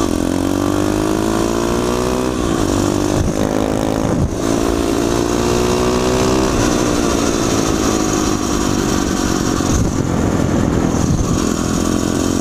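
Pit bike's Piranha 140cc single-cylinder four-stroke engine pulling away through the gears: the engine note climbs, drops at an upshift about two and four seconds in, climbs again, then settles to a steadier cruising note for the second half.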